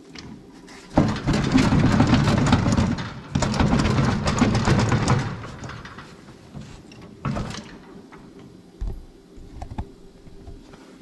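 Front wheel of a riding mower being worked by hand on its steering spindle, making two rough scraping, rumbling stretches of about two seconds each, with a sharp knock and a dull thump later on.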